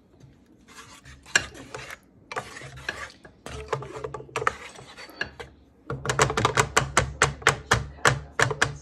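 Wooden spoon stirring sliced peaches in a wet, syrupy mix in a skillet, scraping across the pan. The strokes are slow and uneven at first, then from about six seconds in turn quick and steady, about five a second.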